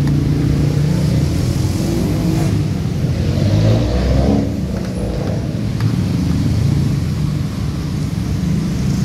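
Motor vehicle traffic running steadily, with an engine revving up and passing about three to four seconds in before dropping away.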